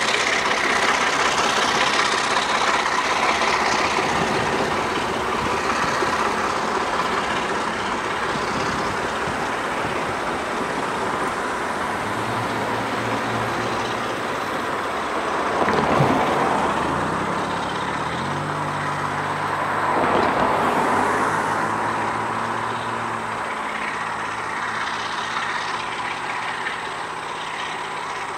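Alco RS-11 diesel locomotive running with a train, a steady mechanical noise over which a low engine hum steps in pitch in the middle, with two brief swells in loudness about halfway through.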